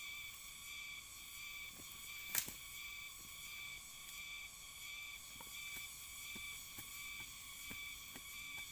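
Steady pulsing chorus of insects, with one sharp click about two and a half seconds in and a few soft knocks later as a machete works the soil.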